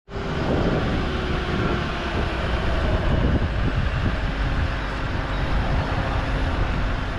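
A vehicle driving along a road: steady engine and road noise with a heavy low rumble.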